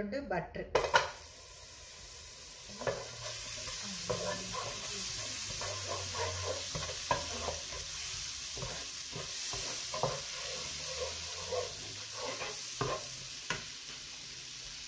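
Butter melting and sizzling in a hot nonstick frying pan, stirred with a slotted spatula that scrapes and taps against the pan over and over. A few loud knocks in the first second as the butter goes in.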